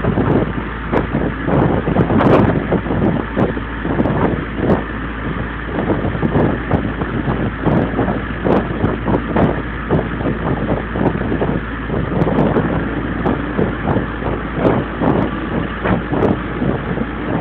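A fishing boat's engine running steadily at sea, with wind buffeting the microphone in irregular gusts.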